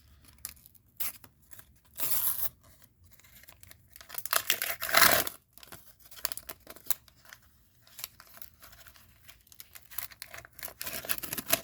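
Panini sticker pack wrapper being torn open and crinkled by hand: a short rip about two seconds in, a louder, longer tear in the middle, and more rustling and crinkling near the end.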